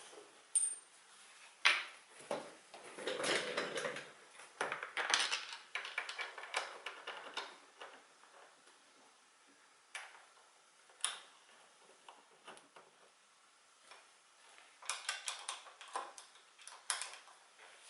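Irregular clicks, clinks and knocks of metal hardware and tools as gaming-chair parts are screwed together, with some rustling. The handling is busiest a few seconds in and again near the end.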